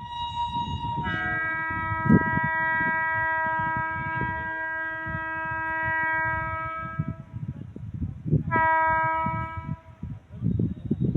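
Indian Railways locomotive horn: a long blast that opens on a single note for about a second and then sounds as a chord of several notes for about six seconds, followed by a second short blast near the end. Beneath it runs a low rumble with irregular knocks from the train on the rails.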